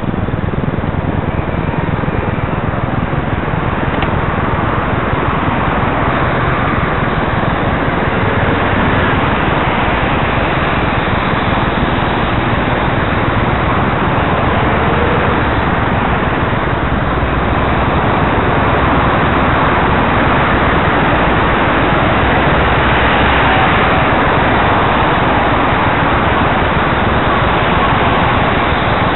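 Steady loud rushing noise of a bicycle ride, wind on the microphone mixed with road traffic passing alongside.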